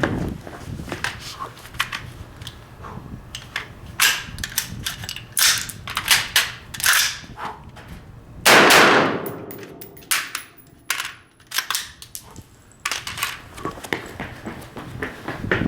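AR-15 carbine being worked through a malfunction drill: a run of sharp metallic clacks and knocks from handling the rifle, with a loud gunshot about eight and a half seconds in, followed by more sharp strikes.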